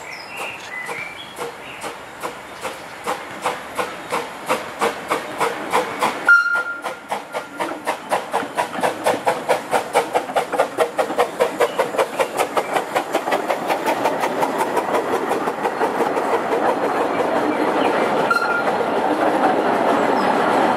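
Miniature-gauge park railway steam locomotive chuffing in a steady, quickening beat as it approaches and passes, then its open carriages rolling by with a steady running noise. A sharp loud sound with a brief high tone comes about six seconds in.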